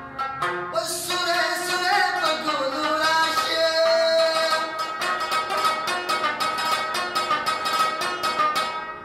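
A man sings a melodic phrase over the rapid plucked strokes of a rubab, then the rubab plays on alone with fast, even strumming for the second half.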